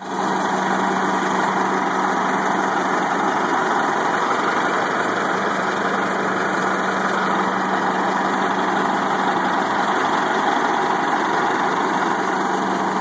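Rear-mounted engine of an Orion V transit bus idling steadily, heard close to its engine-compartment grille, with the beginnings of a "death tick": a sign that the engine is on its last legs.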